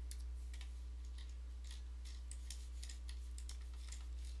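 Light, irregular clicking at a computer desk, several clicks a second, over a steady low hum.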